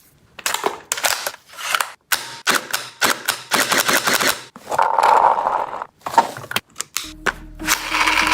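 Gel ball blaster firing in quick bursts of rapid clicking shots, several bursts in a row. Music comes in near the end.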